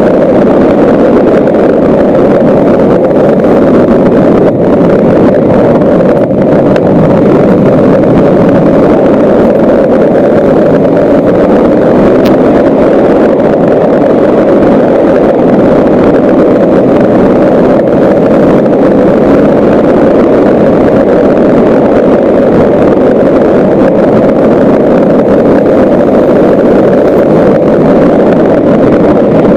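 A vehicle running steadily along a gravel road, mixed with heavy wind noise on the microphone.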